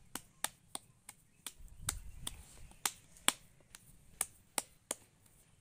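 Palms slapping a ball of maize-flour dough, flattening it by hand into a makki ki roti: a run of sharp, irregular pats, about two to three a second.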